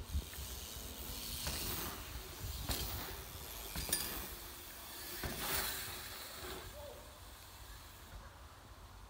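BMX bike tyres hissing over packed dirt trail jumps in several swells, with a sharp metallic click about four seconds in.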